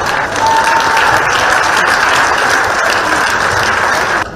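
Badminton arena crowd applauding a won point: dense clapping that cuts off suddenly near the end.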